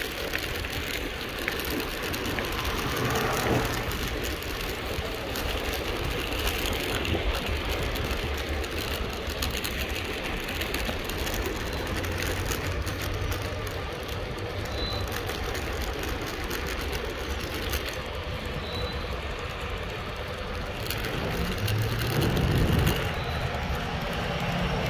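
Mountainboard wheels rolling steadily with a low, continuous rumble, a little louder near the end.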